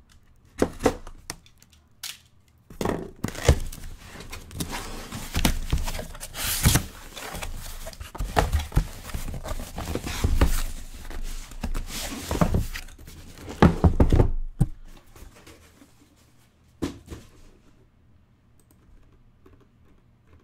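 Cardboard shipping case being torn open by hand, with ripping, scraping and rustling of cardboard and thunks as the shrink-wrapped boxes inside are handled and set down. The handling dies down after about fifteen seconds, leaving a couple of light knocks.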